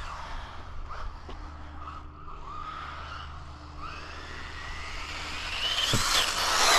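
1/14-scale RC desert buggy on a 3S LiPo running at speed: its motor whines, the pitch rising and falling with the throttle. The whine fades away, then grows louder as the buggy comes back near the end, with a brief knock just before.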